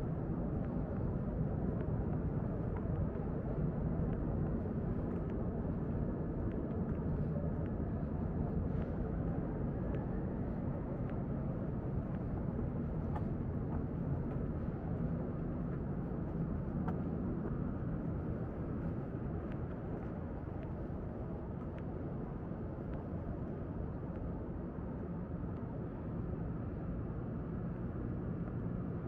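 Steady low rumble of distant engine noise, such as traffic or an aircraft, easing slightly in the second half, with a few faint ticks.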